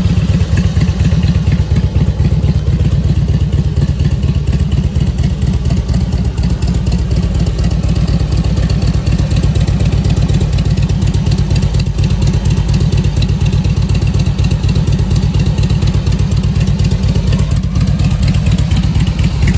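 A 2003 Harley-Davidson Road King's Twin Cam 88 V-twin idling steadily and loudly through DNA fishtail exhaust pipes.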